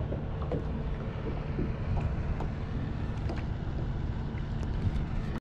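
Wind buffeting the microphone, with scattered small splashes and drips from a kayak paddle stroking through the water.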